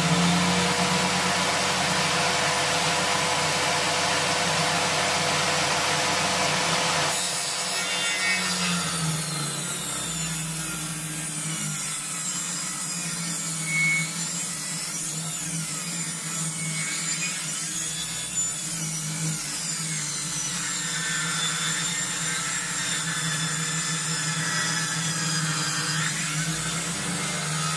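Homemade table saw with a circular blade spinning free for about seven seconds, then ripping a birch log lengthwise. Once the blade is in the wood, the motor's steady whine turns into a rougher sawing sound that wavers with the load of the cut.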